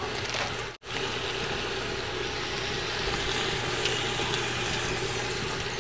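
Duck pieces sizzling steadily as they sauté with vegetables in a pot over a wood fire, over a constant low hum. The sound cuts out for an instant just under a second in.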